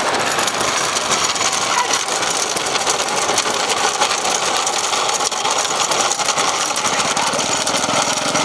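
An engine running steadily, a dense noise with a fast rattle in it.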